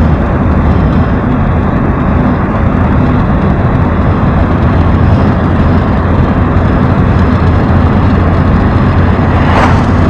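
Steady cabin noise of an Opel car driving at highway speed: a loud, even rumble of road, tyres and engine heard from inside the car.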